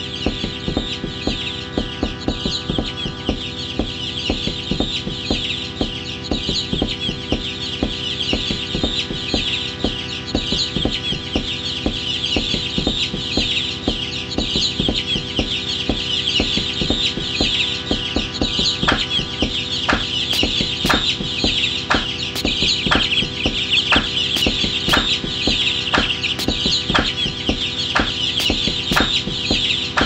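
Deep house track: sustained synth chords under a dense layer of bird-call chatter, with a regular percussion hit coming in about two-thirds of the way through, roughly once a second.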